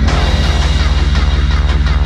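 Background electronic dance music with a steady, fast bass beat.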